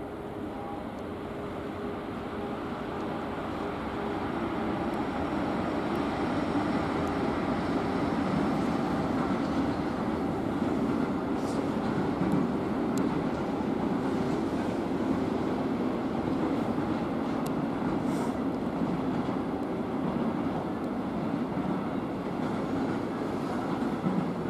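Electric freight train of container and tank-container wagons rolling past: a steady rumble of wheels on rails that grows louder over the first several seconds and then holds, with a few faint high clicks.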